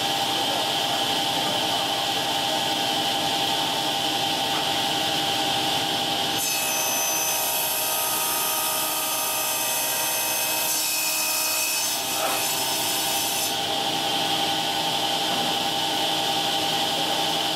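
Table saw with a carbide-tipped circular blade running with a steady whine. From about six seconds in to about thirteen seconds the blade cuts through a plastic sheet, adding a harsher high hiss over the whine.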